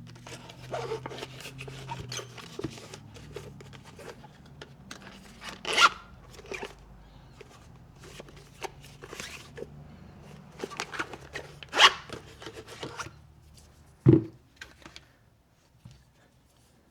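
A suppressor being slid into and handled in a small Magpul DAKA suppressor pouch: rustling and scraping of the pouch fabric, with a few sharper knocks about 6, 12 and 14 seconds in.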